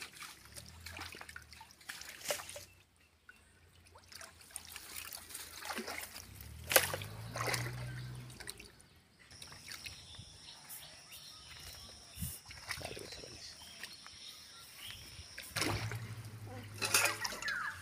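Shallow muddy water sloshing, trickling and splashing as a boy wades and grabs at fish with his hands, with one sharp splash about seven seconds in.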